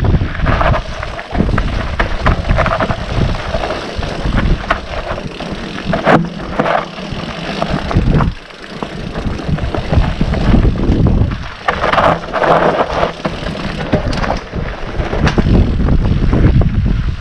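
Wind buffeting the microphone in irregular gusts, a heavy rumble that swells and dips, with a brief lull about eight seconds in.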